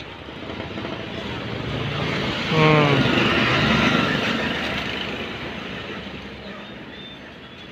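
A motor vehicle passing on the road: its noise swells to a peak about three to four seconds in, then fades away.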